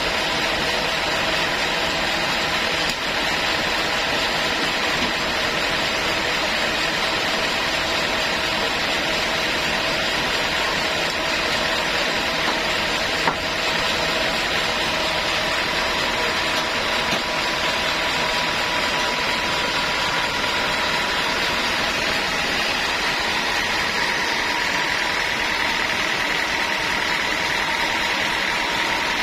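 Sawmill saw running steadily, a constant mechanical noise with a steady whine that grows a little stronger near the end.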